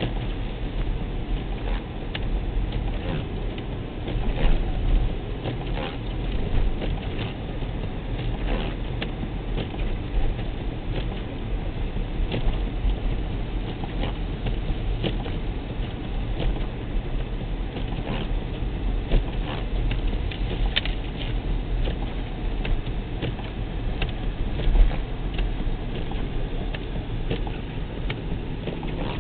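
Car driving through a snowstorm, heard from inside: a steady rumble of road and engine, with frequent irregular pattering ticks of snow striking the car.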